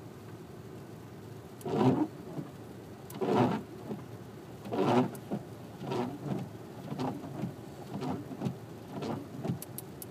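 Michelin windshield wiper blades sweeping across wet glass, each stroke making a loud noise. There are about seven strokes, starting about two seconds in, roughly one every second to second and a half. The noise is the sign of blades gone noisy after about three months of use.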